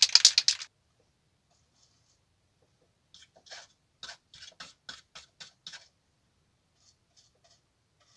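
Aerosol paint can shaken, its mixing ball rattling quickly for under a second. After a pause, a fine brush makes a run of short, soft scratchy strokes, about three a second, as it works paint onto a small plastic model radiator grille.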